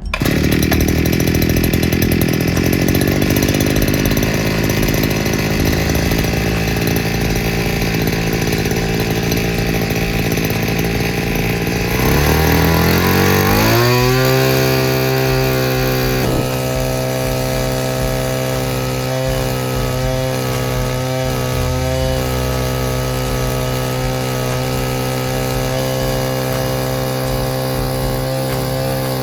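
Small two-stroke Briggs & Stratton engine driving a Bianco Vulcan 1.6 hp portable transfer pump, running at high revs. About halfway through its pitch rises over a couple of seconds, then it runs steady.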